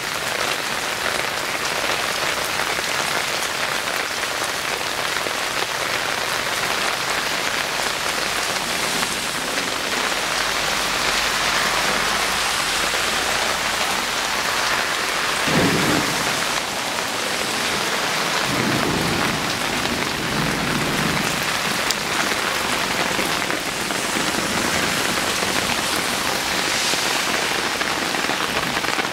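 Heavy rain falling steadily on grass, leaves and ground, a dense even hiss, with some low rumbling around the middle.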